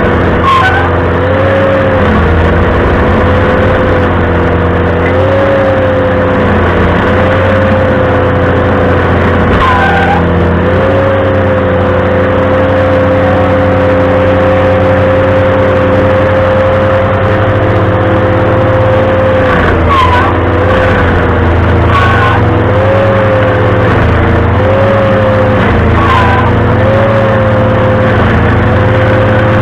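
Ventrac compact tractor running a stump grinder attachment at a steady high speed. Its pitch dips and recovers every few seconds as the cutter wheel loads up in the stump. A few short squeals come through, about half a second, ten, twenty, twenty-two and twenty-six seconds in.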